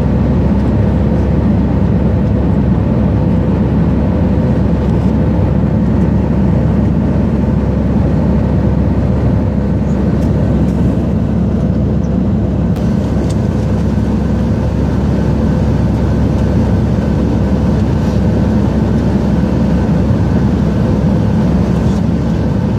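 Steady cabin noise of an Airbus A319 airliner in flight above the clouds: a loud, even drone of engines and airflow, with a faint steady whine running through it.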